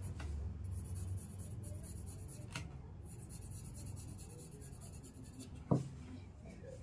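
Graphite pencil scratching on paper in short hatching strokes, shading a drawing, faint over a low steady hum. One brief thump comes near the end.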